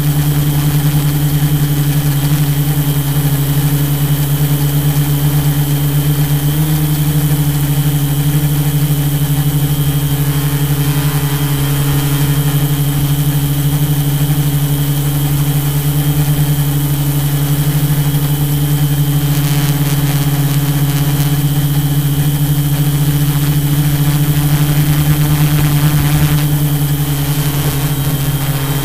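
Tarot 680 Pro hexacopter's electric motors and propellers in flight, a loud steady buzzing hum whose pitch shifts slightly now and then.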